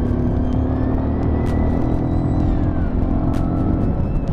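Motorcycle engine running under steady throttle at road speed on a rough dirt road, with wind noise and a few sharp knocks from bumps. The engine note dips briefly near the end before picking up again.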